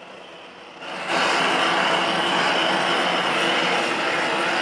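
Roofing torch flame rushing as it heats torch-down membrane. The flame is fainter at first, then becomes a loud, steady rush about a second in.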